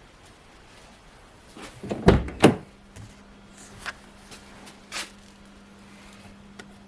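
A car door shutting with two heavy thumps about half a second apart, then a few lighter clicks and knocks over a faint steady hum.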